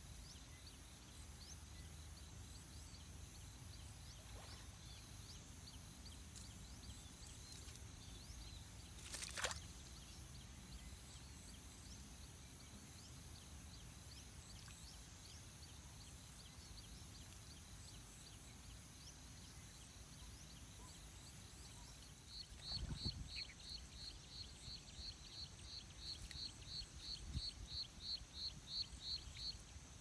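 Faint outdoor ambience with a steady high hiss, a single sharp brief sound about a third of the way in, and in the last quarter an animal calling a rapid, even run of about twenty short high notes, roughly three a second.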